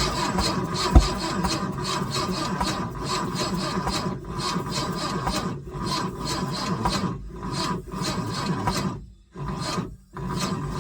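Boat engine turning over on its starter motor without firing: a long, steady grinding crank with a couple of short breaks near the end where the starter is released and engaged again. The engine does not catch.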